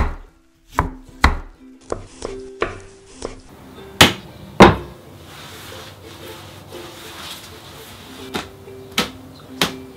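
A light plucked-string tune, with sharp knocks every half second to second over it and two loud thuds about four seconds in.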